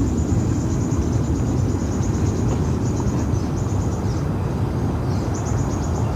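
Outdoor ambience: a loud, steady low rumble with insects trilling high up in fast, even pulses, the trill breaking off briefly twice near the middle.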